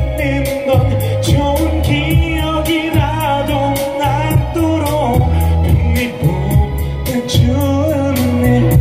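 A man singing live into a microphone over pop accompaniment with a steady drum beat and bass, amplified through the PA.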